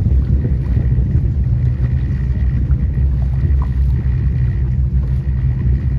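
Motorboat engine running steadily underway: a continuous low rumble, with a faint steady whine above it and wind buffeting the microphone.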